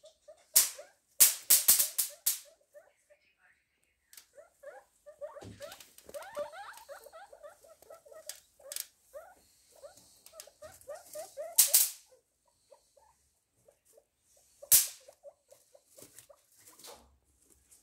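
Guinea pigs making quick runs of short squeaky calls, with loud sharp crackles of dry straw and the cardboard box, several in the first two seconds and single loud ones around twelve and fifteen seconds in.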